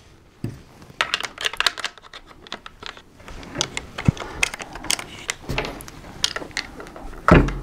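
Sharp metallic clicks and rattles of a Mossberg 590 pump shotgun being handled while inert snap-cap shells are pushed into its magazine tube, with a heavier knock about seven seconds in.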